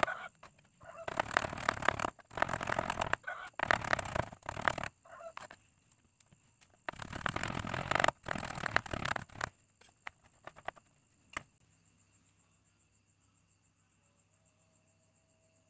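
Steel cleaver rapidly mincing cabbage, shallots, garlic and chili on a plastic cutting board: two long runs of fast chops with a short pause between, then a few scattered taps, stopping about two-thirds of the way through.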